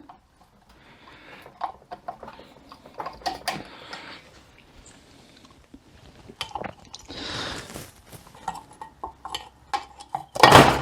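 Metal transmission parts clinking, knocking and scraping as the 42RE overdrive components are handled and worked into place. A loud, short clatter comes near the end.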